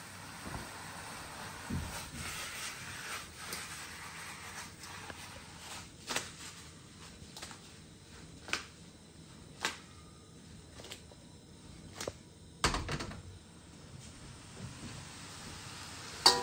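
Beef frying in a wok: a faint sizzle under scattered knocks and clinks of the wok and spatula being handled. The knocks are loudest between about six and thirteen seconds in.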